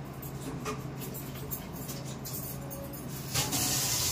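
Faint clicks of handling over a low steady hum, then a kitchen water tap turned on about three and a half seconds in, water running steadily for hand washing.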